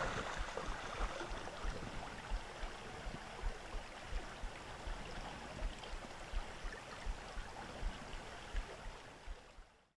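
Fast-flowing creek rushing in a steady hiss, with irregular low thumps of wind buffeting the microphone; it fades out near the end.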